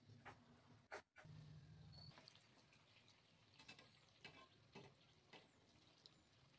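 Near silence, with faint sizzling of urad dal pakodis deep-frying in hot oil and a few faint crackles in the second half.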